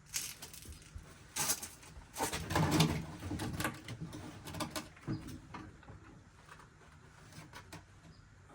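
Scattered clicks and knocks of metal engine parts and tools being handled during a two-stroke engine teardown, with a louder cluster of knocks and a short, low, pitched sound between two and three seconds in.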